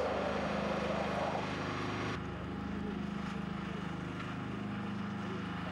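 Steady machine drone with a low hum, like a running engine. About two seconds in, the noisier upper part cuts off abruptly, leaving the hum.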